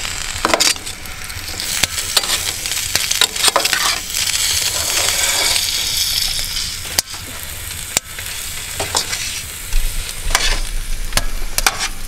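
Diced food frying and sizzling in a frying pan, stirred with a slotted spatula whose repeated knocks and scrapes against the pan click through the steady sizzle.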